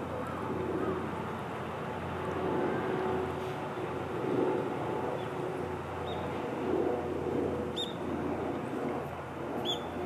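Steady low rumble of distant vehicles, with three short, high bird chirps in the second half.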